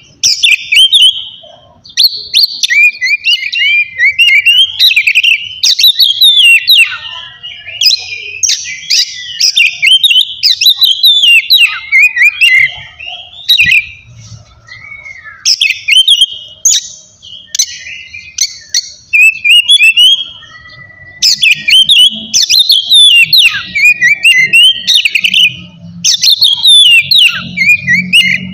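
Oriental magpie-robin (kacer) singing loudly in full 'ngeplong' style: long runs of rapid, varied whistled notes and trills, in phrases broken by brief pauses.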